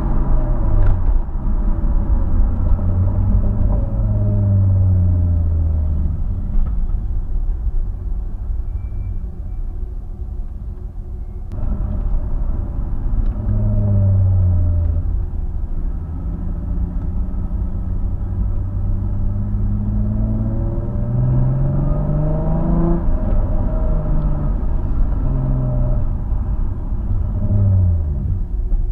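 2005 Nissan 350Z's V6 through a Scorpion un-resonated cat-back exhaust with Y-pipe and high-flow sports cats, heard on the move: the note rises under acceleration and falls away off the throttle several times. There is a quieter lull about a third of the way in before the engine note comes back suddenly, then a long steady climb in pitch and a drop near the end.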